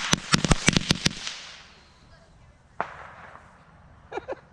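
Small consumer firework firing a quick run of sharp cracks for about a second, then a fading hiss and one last crack near three seconds in.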